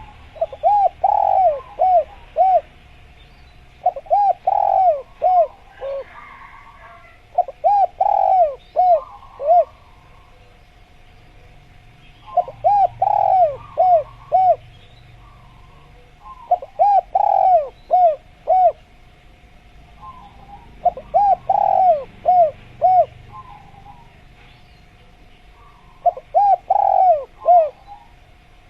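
Spotted dove (tekukur) cooing: seven phrases of several quick notes, one about every four seconds. Faint chirps of small birds and a thin steady tone run between the phrases.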